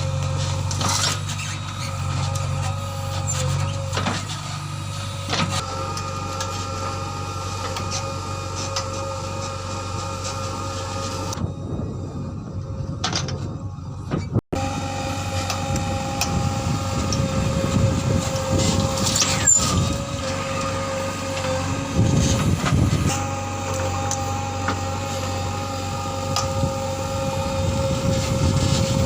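JCB 3DX backhoe loader's diesel engine running steadily under working load, with a constant high hydraulic whine over the low engine note and scattered knocks. The sound cuts out for an instant about halfway through.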